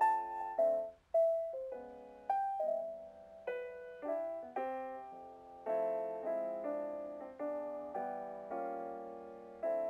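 Gentle background piano music: single notes and chords struck at an unhurried pace, each fading away.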